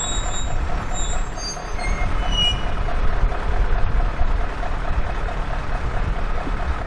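Matisa VM 500 SAB rail maintenance vehicle running past with a steady low rumble and a faint, evenly repeating pulse. A thin high squeal fades away in the first two seconds or so.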